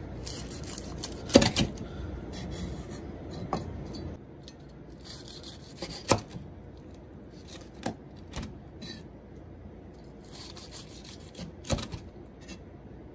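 A kitchen knife slicing through the crisp, crackly skin of a starch-coated, pan-fried chicken thigh. The blade crunches through the crust in about five cuts, each ending in a knock on the wooden cutting board. The first knock is the loudest.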